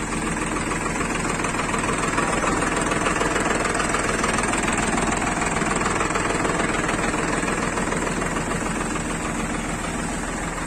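Tractor's diesel engine running steadily, driving a water pump.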